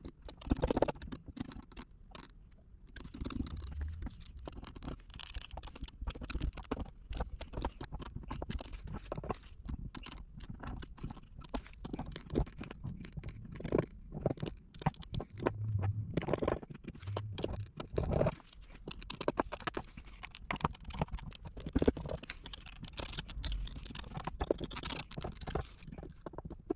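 Irregular scratching, scraping and tapping of a plastic welder's tip being worked over a polypropylene gas tank, laying on a second pass of polypropylene filler from welding sticks.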